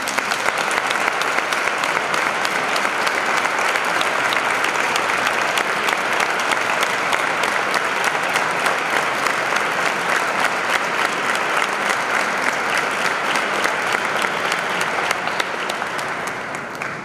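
Audience applauding at the end of a symphonic band piece: steady, dense clapping that dies away over the last couple of seconds.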